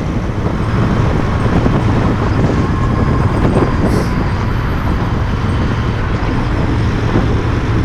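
Royal Enfield Interceptor 650's 648 cc parallel-twin engine running steadily under the rider while on the move, with road and wind noise.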